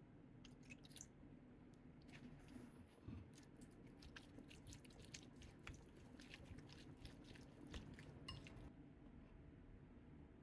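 Fingers mixing a salad of wakame seaweed, cucumber and sliced new ginger in a glass bowl: faint, irregular wet squishing and crisp crackling. It stops about three quarters of the way through.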